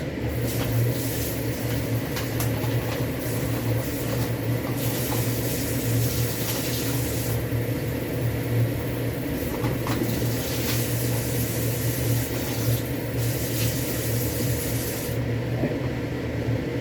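Kitchen tap running as a container is rinsed out under it, the splashing water changing as it is moved about, then shut off near the end. A steady low hum runs underneath.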